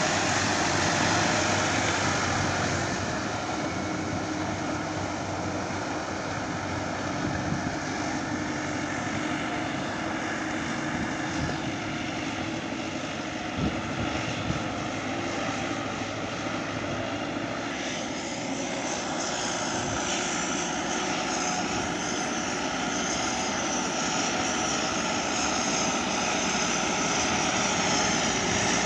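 Tracked farm tractor's diesel engine running steadily under load as it pulls a rear puddling implement through a flooded rice paddy's mud and water. About two-thirds of the way in, a high wavering whine joins the engine.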